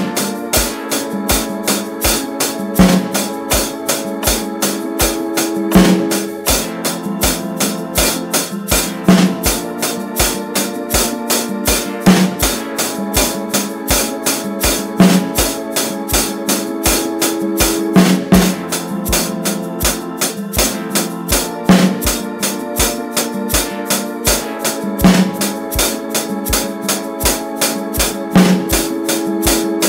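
Drum kit playing a steady groove of eighth-note hi-hat with one snare hit per bar, the snare moving to a different spot in the bar, as in a snare-drum grid warm-up. It plays along with a backing track of held chords and steady low beats.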